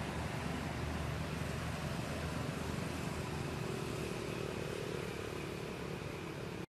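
Steady outdoor background noise, a low rumble and hiss, with a faint hum coming in about three seconds in; it cuts off abruptly just before the end.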